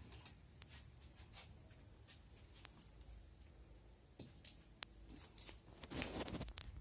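Faint clicks and light scraping of kitchen utensils against a cooking pot, with a louder burst of scraping about six seconds in, as the cooked egg curry is taken off the heat and dished out.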